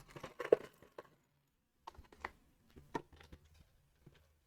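Plastic Lego Technic pieces clicking and clattering as they are handled. There is a quick run of clicks in the first second, then scattered single clicks.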